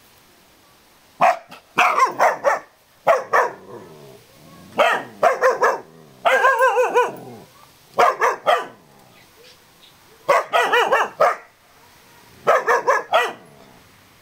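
Berger Picard puppy barking in repeated bursts of several sharp, high barks, with one longer, wavering bark about six seconds in.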